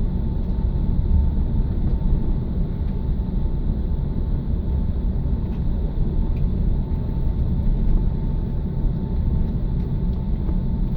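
Cabin noise inside an Airbus A380 rolling on the ground just after landing: a steady low rumble with a faint steady whine.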